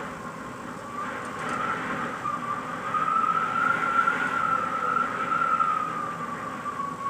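Wind whistling through a country cottage window: one long whistle that swells and rises in pitch through the middle, then eases and falls back near the end, over a low rush of wind.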